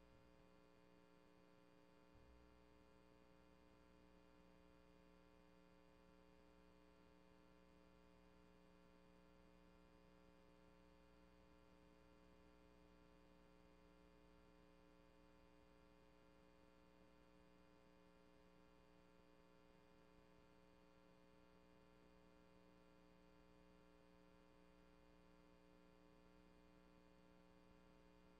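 Near silence, with only a faint, steady electrical hum; the meeting's audio was not captured.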